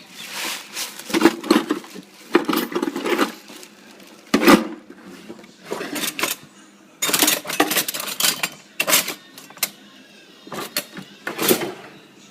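Metal utensils and a metal pot clinking, knocking and scraping in irregular bursts, as honeycomb is handled in a container.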